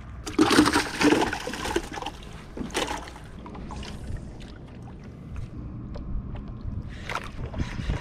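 Water splashing and sloshing in a loud burst lasting about a second and a half near the start, with a shorter splash near the middle and another just before the end. Between the splashes, water laps quietly against a small boat.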